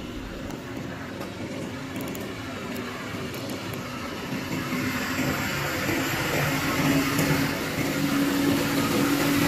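HOWO garbage compactor truck's diesel engine running as the truck drives up, its steady hum growing louder as it approaches.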